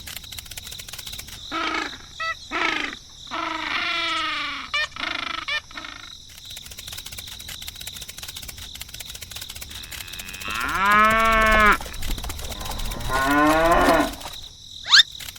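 Cattle mooing: several drawn-out calls that bend in pitch, the longest and loudest about ten seconds in, with a short rising whistle near the end.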